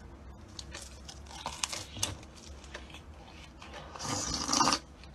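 A person chewing and biting bread, with many small crunching clicks close to the mouth. About four seconds in comes a louder noisy sip from a mug, lasting under a second.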